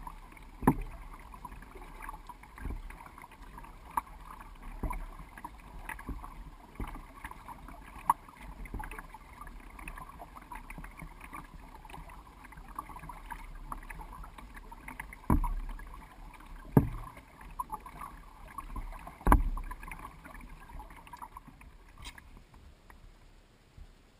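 A double-bladed paddle dipping and pulling through the water beside an Old Town canoe, stroke after stroke, with several sharp knocks standing out along the way. The paddling stops near the end.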